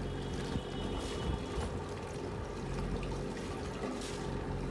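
A steady low machine hum with running water.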